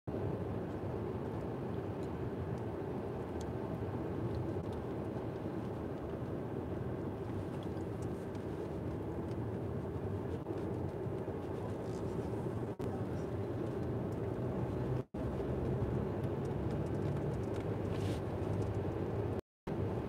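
Steady road and engine noise inside the cabin of a car driving at road speed, a low even hum without distinct events. The sound cuts out briefly twice near the end.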